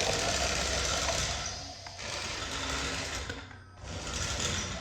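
Small battery-powered electric motor and gears of a remote-control Thomas the Tank Engine toy whirring as it runs, dropping away briefly about two seconds in and again about three and a half seconds in.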